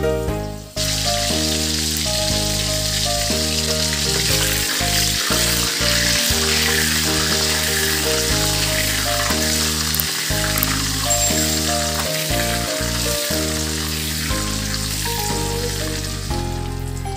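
Cooking oil sizzling as it heats in a non-stick kadai while a wooden spatula spreads it. The hiss starts about a second in, over steady background music.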